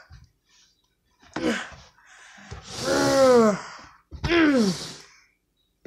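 A person's voice making three wordless sounds, each falling in pitch: a short one about a second in, a long breathy one in the middle, and a shorter one near the end.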